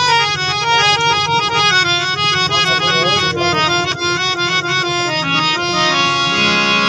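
Harmonium playing a fast melodic run of short notes over a low sustained drone, then settling onto long held notes near the end.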